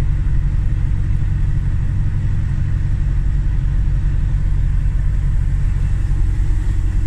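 Fire truck engine running steadily under pump load, heard from inside the cab, while the truck shoots water from its front nozzle. It makes a low, even drone with a steady hiss over it.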